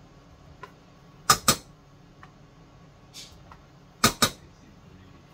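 A table knife tapping on the rim of a stainless steel saucepan, knocking butter off into boiled potatoes: two quick metallic taps about a second in, a short scrape, then two more taps near the end.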